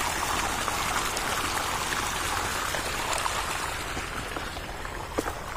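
Irrigation water pouring from pump pipes into a flooded rice paddy: a steady rush of splashing water that eases off slightly toward the end.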